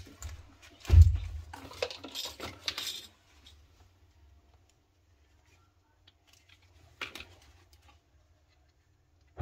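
Small hard parts and tools clattering and clinking as a washing machine's drain pump is handled: a heavy thump about a second in, busy clatter for the next two seconds, then one more clink near the end.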